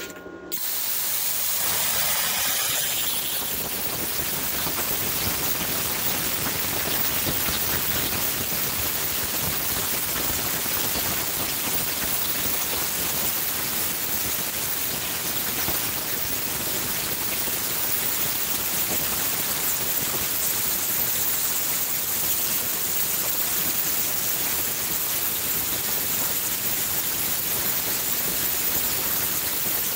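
Vevor Cut 50P air plasma cutter with an AG60 torch cutting through 1/2 inch steel flat bar at its maximum of about 51 amps on 220–240 volts and 70 PSI air: a steady, even hiss of the arc and air jet. It starts about half a second in and holds without a break.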